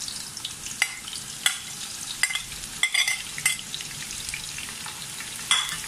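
Sliced onions sizzling in hot oil as they go into the pot, a steady high hiss. A steel spoon clinks sharply about seven times as the onions are scraped in and stirred.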